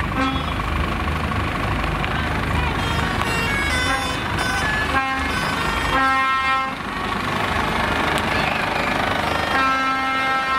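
Lorries' diesel engines running as a convoy of tractor units rolls slowly past, with truck horns sounding repeatedly over them: a run of short notes at changing pitches, then a long held blast near the end.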